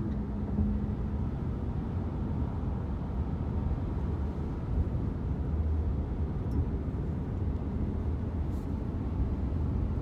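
Road noise inside a moving car's cabin: a steady low rumble of engine and tyres.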